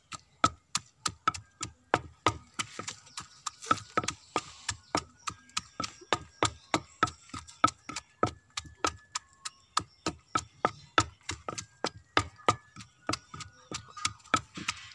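Long wooden pestle pounding lovi fruit mashed with salt, pepper and chilli in a wooden mortar: steady, even knocks, about three a second.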